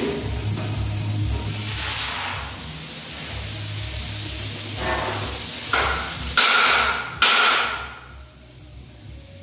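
Plasma cutter running, with a steady hiss of air and a low electrical hum. Several short, sharp bursts come about five to seven seconds in, and the hiss falls away near the end.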